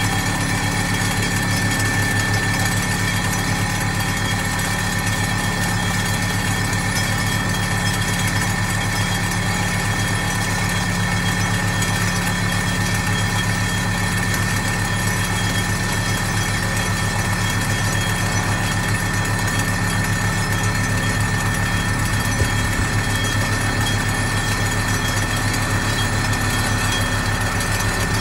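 ThyssenKrupp MS-10 vibratory pile hammer running steadily as it drives a steel pipe pile: a constant low drone with a fast pulsing beat and a steady high whine.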